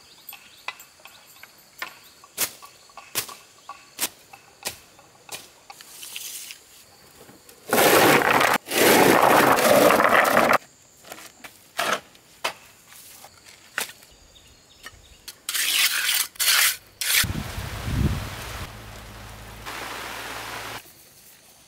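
Stones clattering and rattling as a load of river rocks is tipped from a metal wheelbarrow onto a pile: a loud tumbling rattle about eight seconds in, lasting about three seconds. Scattered sharp knocks of stone on stone come before and after, with a second run of loud clatter later on.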